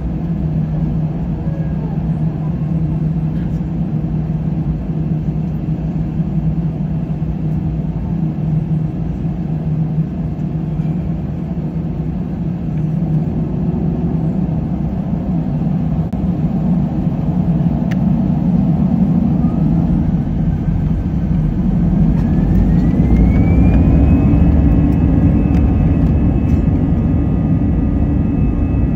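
Airbus A320 jet engines heard from inside the cabin: a steady low rumble, then from about two-thirds of the way through a whine that rises in pitch and levels off while the rumble grows louder, as the engines spool up toward takeoff thrust.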